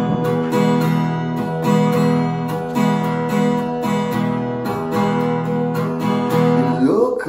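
Acoustic guitar strummed, steady chords ringing, a few strums a second.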